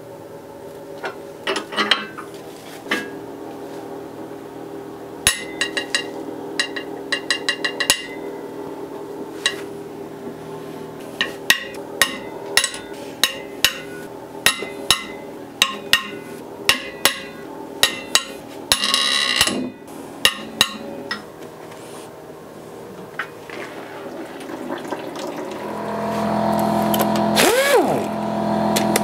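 Hand tools on a Honda R18 engine's cylinder head as its head bolts come out: quick runs of metallic clicks like a ratchet, then steady clicks about two a second, and a short hiss. Near the end a louder whir builds and rises and falls in pitch twice.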